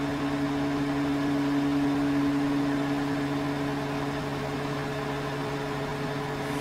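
Over-the-range microwave oven running with a steady electrical hum.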